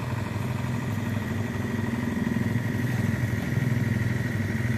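A small engine running steadily at an even speed, with a faint high whine over it.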